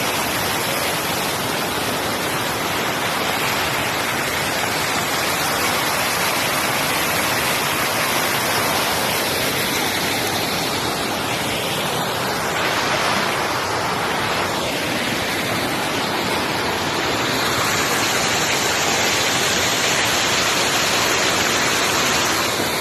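A loud, steady rushing noise with no clear rhythm or tone, with a few faint rising and falling sounds in the middle.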